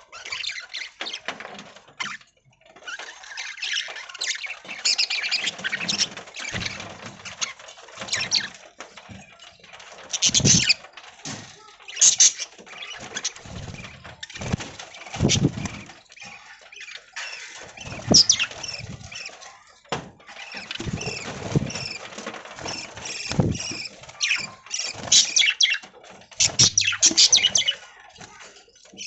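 A flock of budgies chirping and chattering continuously, with occasional short low thumps and flutters.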